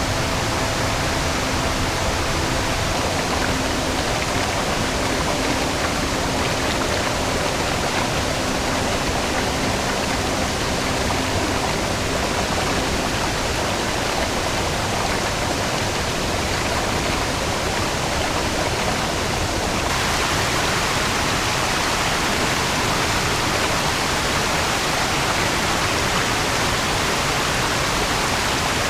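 Mountain stream rushing steadily over rocks and small falls. About two-thirds of the way through, the water turns brighter and hissier.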